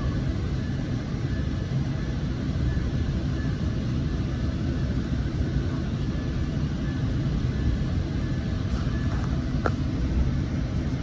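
Steady low rumble of a Coaster commuter train rolling out of the station, heard from inside the passenger car, with one sharp click about ten seconds in.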